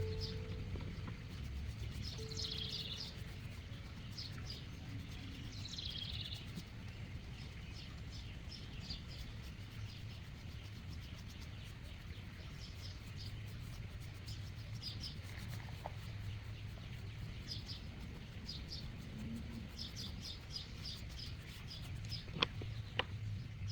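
Small birds chirping again and again over a steady low hum, with two sharp clicks near the end.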